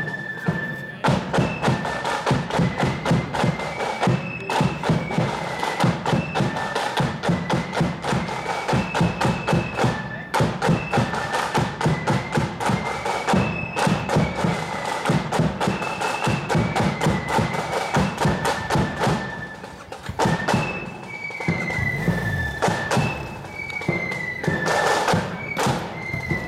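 Marching flute band playing a tune: a high, stepping flute melody over a steady beat of snare and bass drums. It dips briefly about twenty seconds in.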